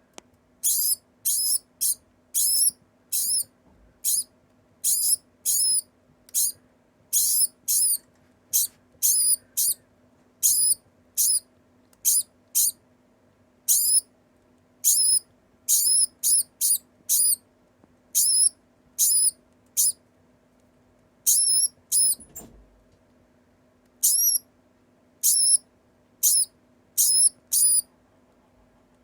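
A degu calling over and over: short, high-pitched calls repeated about once a second, with a few brief pauses.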